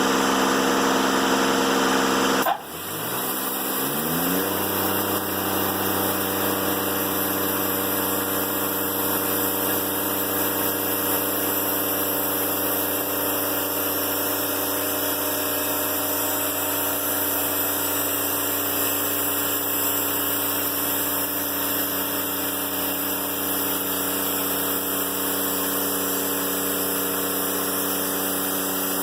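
Diesel engine of a Timberking 1400 sawmill running steadily. About two and a half seconds in, a loud rushing noise over it cuts off suddenly and the engine's pitch shifts for a moment. It then runs on evenly.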